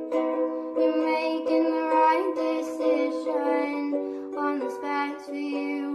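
Soft ukulele-accompanied song, with a voice holding long, bending notes over the plucked chords.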